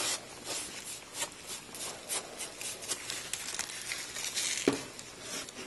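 Irregular crinkling and light scratching as a paintbrush works liquid latex along the edges of a foam-core board over plastic sheeting and foil, with a soft knock near the end.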